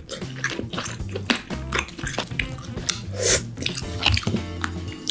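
Soft background music with a low bass line, under wet clicks and crackles of king crab shell and meat being picked apart and eaten by hand, with one louder wet burst about three seconds in.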